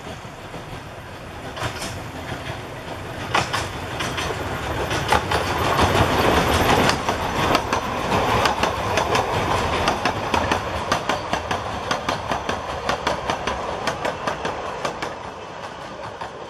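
Narrow-gauge train passing close by: the locomotive's rumble builds to its loudest about six to seven seconds in, then the carriages roll past with a rapid, regular clickety-clack of wheels over the rail joints, fading away near the end.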